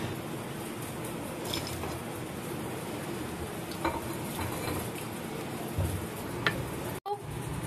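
Sauce sizzling in a nonstick wok as a silicone spatula stirs chicken pieces through it, with a couple of light knocks of the spatula against the pan. The sound cuts out for an instant near the end.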